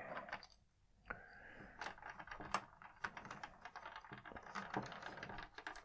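Faint, irregular clicks and taps of hard plastic as the parts of a Hasbro X-Wing toy are handled and a laser cannon is fitted onto a wingtip.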